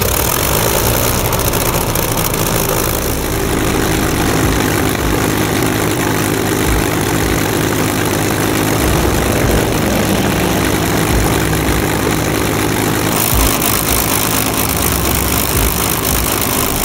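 Spitfire's Rolls-Royce Griffon V12 engine running steadily at idle just after start-up, the propeller turning. A rushing hiss grows louder about 13 seconds in.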